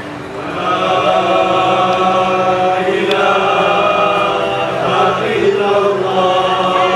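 Vocal chant of an Acehnese Rapa'i Geleng group: long held sung notes that slide between pitches, swelling in about half a second in, with the frame drums hardly struck.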